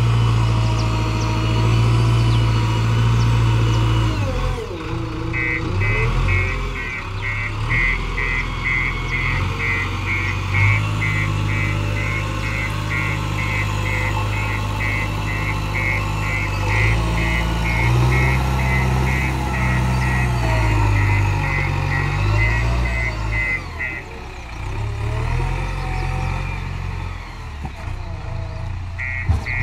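JCB 3DX backhoe loader's diesel engine working under changing load, its pitch rising and falling. A rapid high beeping runs from about five seconds in to about 24 s and starts again near the end, typical of the machine's reversing alarm.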